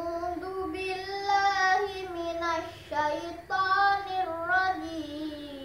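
A boy chanting the Qur'an in slow, melodic tartil recitation, holding long notes that slide between pitches, with a short breath about three seconds in.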